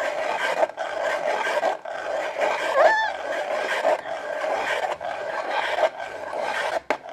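Hand-cranked ice shaver grinding ice cubes: a continuous crunching scrape as its blade shaves the ice finely.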